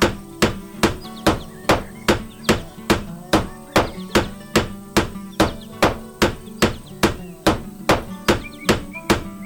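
Steady hammering: sharp, ringing strikes about two and a half times a second, evenly spaced, over soft background music with chirping.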